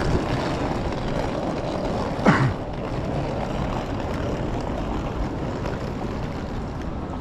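Traffic on a wet city street: a steady hiss of tyres and engines. A short, loud thump comes about two seconds in.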